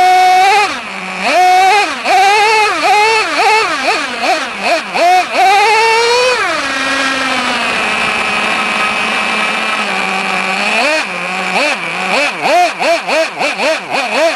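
Traxxas T-Maxx RC monster truck's 2.5R two-stroke nitro engine, heard close from a camera mounted on the truck, revving up and down again and again as it drives over grass. It eases off for a few seconds in the middle, then blips rapidly again near the end.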